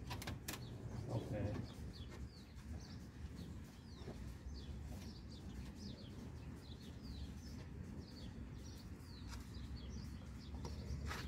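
Small birds chirping steadily in the background, many short high falling chirps, over a low steady hum. A few sharp clicks come at the very start.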